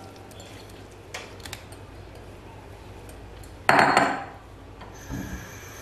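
Grated bottle gourd boiling in a pot of water, with scattered small clicks and one loud, brief clatter of pot and utensils about two-thirds of the way in.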